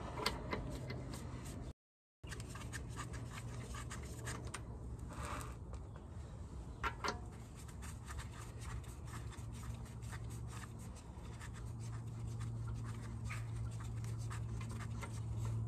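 Loosened wheel nuts being spun off the studs by gloved hand on a Range Rover L322's front wheel: faint scraping and scattered small metallic clicks, a few sharper, over a steady low hum.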